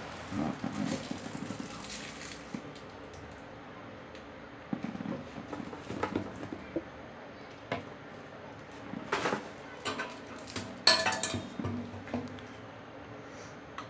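Irregular clinks and knocks of hard objects being handled, sounding like dishes or utensils, with the loudest cluster about eleven seconds in.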